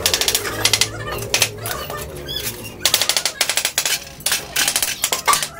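A power impact tool rattling rapidly in short bursts of about half a second, stopping and starting several times, with a longer pause about two seconds in.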